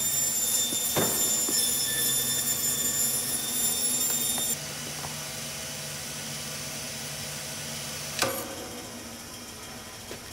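Band saw in a fish-processing plant running with a high whine of many steady tones over a low motor hum. The whine cuts out about four and a half seconds in, leaving a quieter hum, and a single sharp knock comes about eight seconds in.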